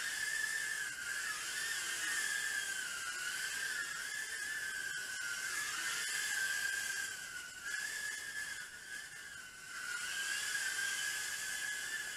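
Tiny Whoop micro quadcopter (Blade Inductrix) in flight: a high whine from its small brushed motors and ducted propellers, its pitch wavering up and down with throttle, over a steady hiss.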